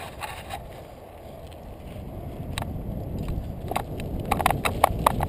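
Mountain bike riding over a rocky dirt trail: a low rumble of tyres and wind on the microphone that builds steadily, with a quick run of sharp rattles and clicks from the bike about four seconds in as it goes over rocks.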